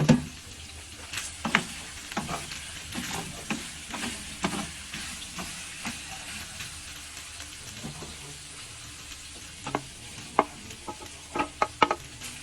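Food sizzling in a frying pan while a utensil stirs it, with sharp clinks and scrapes of the utensil against the pan, thickest near the end.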